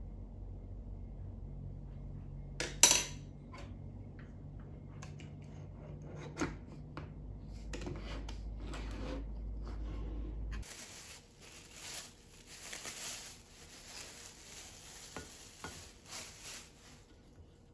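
Wooden spoon stirring coffee in a glass French press, with small clinks and one sharp clink about three seconds in as the plunger lid goes on, over a low steady hum. After a cut, clear plastic wrapping crinkles as it is handled.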